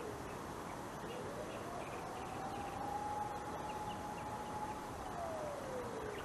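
A siren wailing: its pitch slides down, climbs slowly about a second in, holds high for a couple of seconds, then slides down again near the end, over a steady outdoor background hiss.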